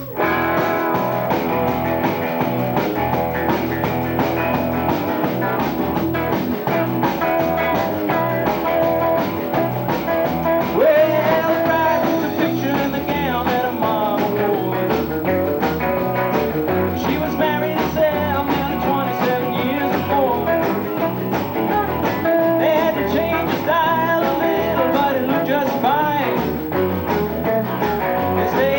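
Live rock and roll band playing an instrumental opening, coming in all together with a steady driving beat.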